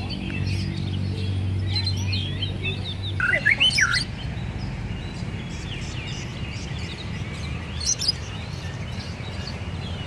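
Caged songbirds chirping and calling over and over, with a louder run of quick sweeping notes about three and a half seconds in. A steady low hum underneath stops a little after three seconds in.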